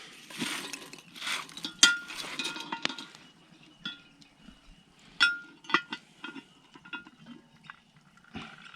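Metal clinks, knocks and scrapes of a cast-iron camp oven being opened to check the roast, with a few short ringing clinks of metal on metal.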